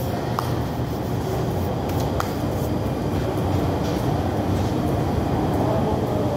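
Steady low rumbling background noise of a restaurant dining room, with a couple of light clicks near the start and about two seconds in.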